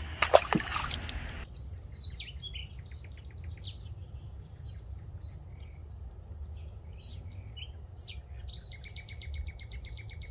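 Wild birds calling and chirping around a lakeshore reed bed, with a fast, evenly repeated high trill near the end. In the first second or so, a few sharp clicks and knocks, the loudest sounds here, come from handling gear.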